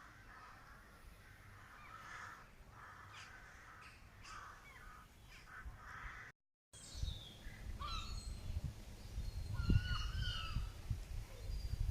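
Woodland birds calling: repeated calls in the first half, then, after a brief break in the sound about six and a half seconds in, higher chirps and whistles over a low rumbling noise that grows louder toward the end.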